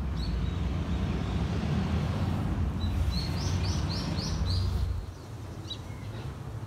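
Small birds chirping, with a quick run of about five short high notes, over a steady low rumble of background noise. The rumble drops away about five seconds in.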